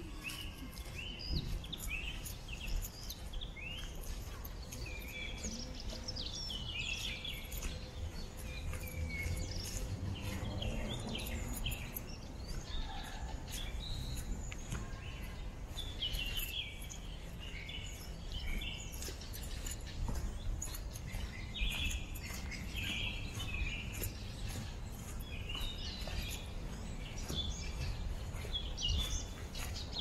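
Several small birds singing and calling, with many short chirps and trills through the whole stretch over a steady low rumble.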